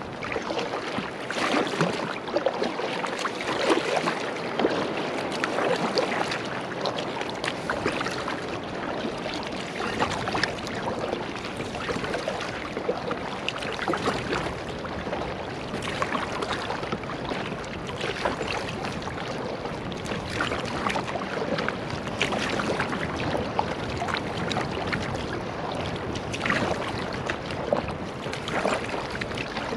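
Double-bladed kayak paddle dipping and pulling through sea water in repeated strokes, with splashing and water dripping off the blades.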